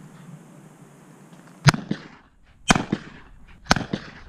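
Shotgun firing three shots in quick succession, about a second apart, each a sharp crack with a short echo trailing off.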